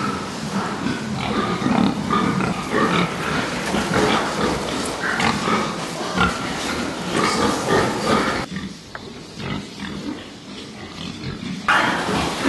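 A crowd of pigs penned together grunting and calling continuously, with knocks among them. About two-thirds of the way through the sound turns quieter and duller for about three seconds, then comes back at full strength.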